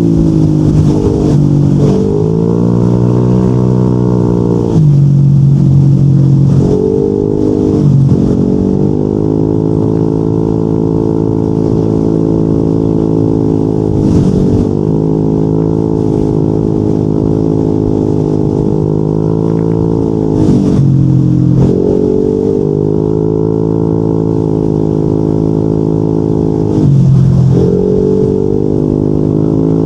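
Yamaha NMAX 155 scooter's single-cylinder engine running through a Yoshimura RS2 aftermarket exhaust while riding. The pitch rises under throttle and holds steady at cruise, then drops back briefly and climbs again, with dips about 5, 14, 21 and 27 seconds in.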